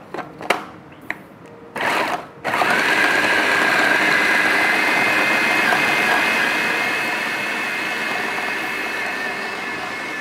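Electric food processor starting after a few clicks, about two and a half seconds in, then running steadily with a motor whine as it chops onion, herbs and bread into a kebab mix.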